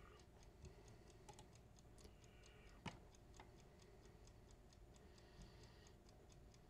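Near silence: quiet room tone with faint, rapid, even ticking and one louder click about three seconds in.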